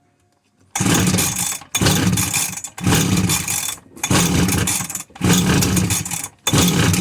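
A Husqvarna brush cutter's two-stroke engine is pull-started on full choke. It fires in six bursts of about a second each, dying away between pulls. It is catching on petrol primed straight into the cylinder, which points to a fuel-supply fault.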